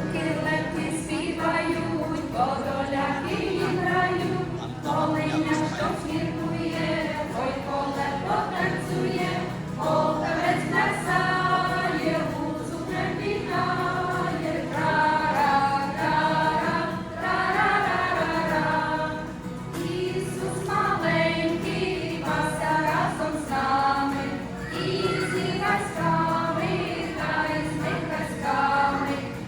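A group of voices singing a Ukrainian Christmas carol (koliadka) together, one sung line after another, over a steady low note.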